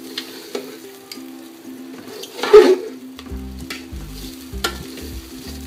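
Metal spatula stirring and scraping rice and lentils as they fry in oil in an aluminium pot, the grains rustling and sizzling, with one louder scrape about halfway through.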